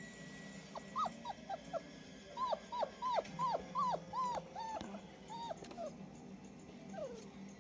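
Four-week-old German Shepherd puppy whining: a quick run of short, high, rising-and-falling whimpers, more than a dozen over about four seconds, then one longer falling whine near the end.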